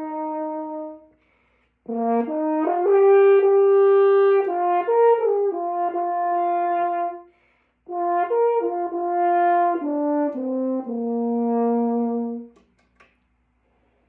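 Brass instrument played as a warm-up: held notes stepping up and down in three phrases, with short breaths between them. The last phrase ends on a long low note.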